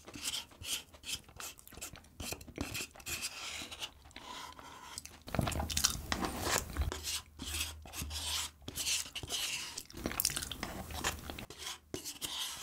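A wooden spoon scrapes the inside of a paper cup of soft cream cake, followed by close-up chewing and mouth sounds of eating the cake. The eating sounds grow louder from about five seconds in.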